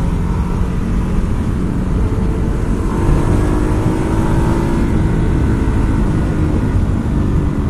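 Ducati Hyperstrada's 821cc V-twin engine pulling hard under acceleration, its pitch climbing slowly, with heavy wind rush over the microphone.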